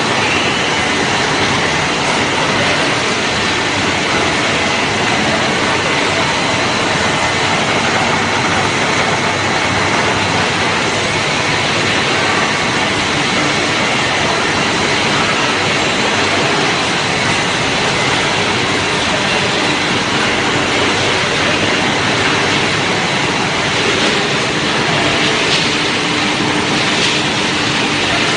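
Steady loud machinery noise from a running soya protein extrusion line: motors, fans and conveyors, with a few faint steady whines running through it.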